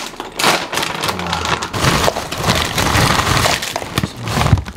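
Potato crisps crunching as they are bitten and chewed close to the microphone: a dense run of irregular crackles.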